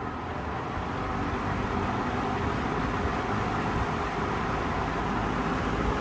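A mid-to-late-1960s McGraw-Edison Zero 20-inch two-speed box fan, model 20488, starting up on high speed. The rush of air and motor hum build over the first second or so as it comes up to speed, then run steadily.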